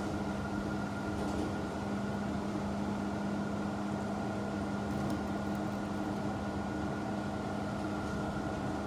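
Steady hum of a CNC wire-cut EDM machine running, with a constant low tone and a fainter higher one over an even whir.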